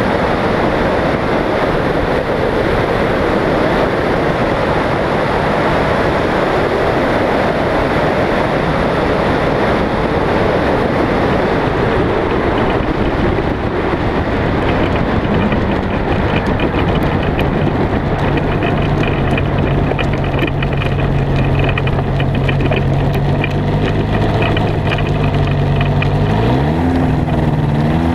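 Microlight trike's engine and pusher propeller, heavily covered at first by wind noise on the microphone during the landing approach. After touchdown, about halfway through, the wind noise falls away and the engine is heard running steadily at low throttle as the trike rolls on grass; near the end its pitch rises as it is throttled up.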